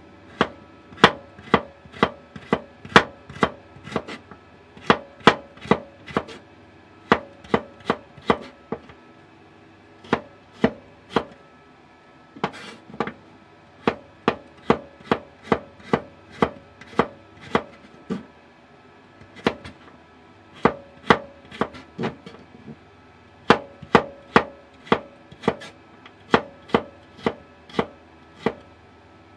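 Kitchen knife chopping a carrot on a wooden cutting board. Sharp knocks come about two a second, in runs broken by short pauses.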